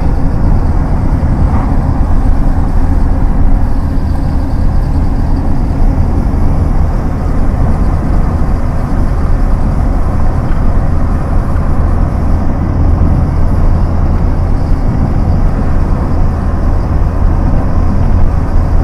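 Car driving along an asphalt road, heard from inside the cabin: a loud, steady low rumble of engine and tyre noise.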